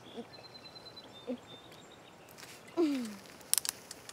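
Two people drinking water, one from a bottle and one through a water filter's drinking hose: faint gulps, then about three seconds in a short falling hum from one drinker, the loudest sound, followed by a few sharp clicks.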